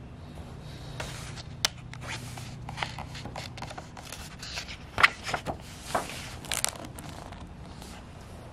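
Pages of a picture book being turned and smoothed flat by hand: a run of paper rustles and flaps, loudest about halfway through.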